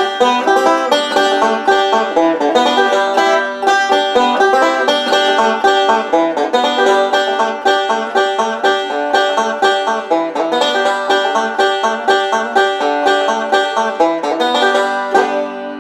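Banjo picking a lively tune, a fast, unbroken run of plucked notes.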